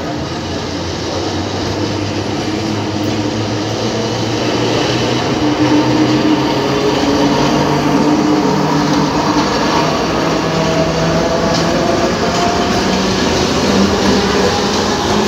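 Alexandria tram running along its street tracks: wheels on the rails and a low motor hum that rises slightly in pitch. It grows louder over the first five or six seconds as the tram approaches, then holds steady as it passes.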